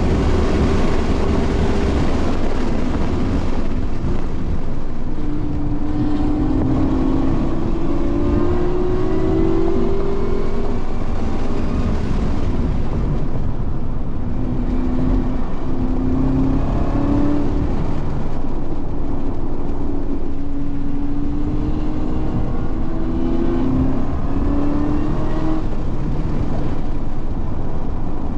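A car's engine at racing speed on track, its note climbing as it accelerates and dropping back as it slows, over steady road and wind noise.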